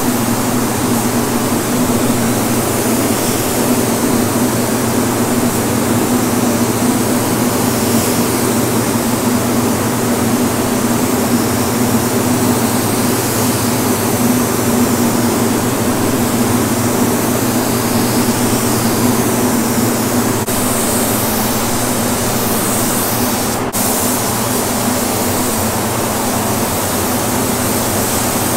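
Steady rushing air in a paint spray booth: the booth's ventilation fans running with a low hum, and the hiss of a gravity-feed paint spray gun spraying a truck cab.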